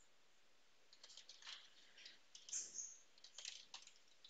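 Faint computer keyboard typing: short runs of key clicks starting about a second in.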